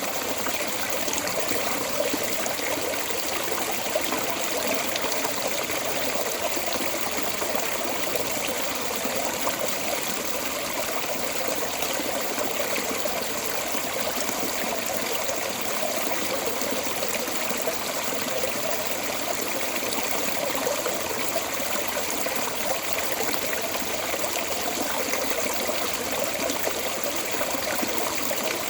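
Water pouring steadily out of a storm drain outlet, a constant splashing and trickling flow.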